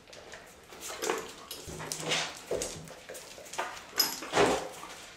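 A dog whimpering several times in short sounds. About four seconds in, a training clicker gives a single sharp click.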